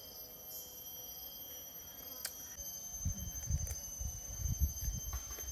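Insects droning steadily at a high pitch in the forest, with a faint pulsing chirr. About halfway through, low uneven rumbles come in underneath.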